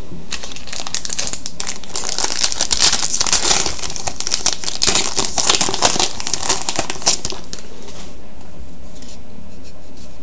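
Trading-card pack wrapper being torn open and crinkled by hand, a dense crackle that dies down about eight seconds in.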